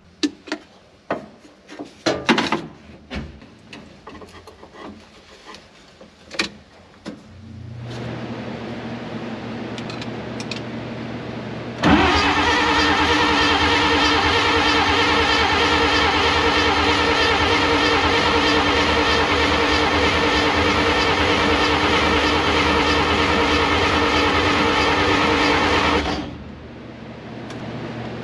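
A motor spins up suddenly and runs loud and steady at one pitch for about fourteen seconds, then cuts off. Before it come clicks and rattles of hand tools and wiring being handled, then a low steady hum from about eight seconds in.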